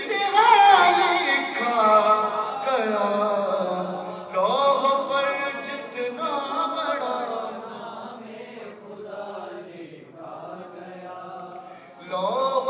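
A man's solo voice chanting a manqabat, an Urdu devotional praise poem, in long drawn-out notes that waver and glide in pitch, with no instruments. The singing grows softer in the second half and swells again near the end.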